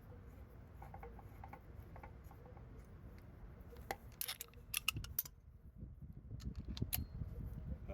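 Metal hand tools clinking and clicking: a quick cluster of sharp clicks about four to five seconds in and a couple more near the end, over a low background rumble.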